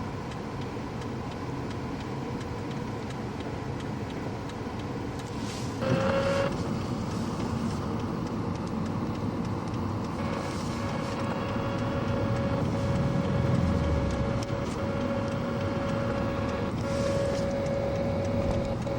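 Steady engine and road noise heard from inside a moving car, with a steady whine that comes in about six seconds in and carries on.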